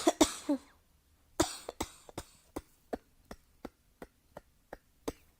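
A person coughing: hard coughs near the start and again about a second and a half in, then a long run of short, quick little coughs, about three a second.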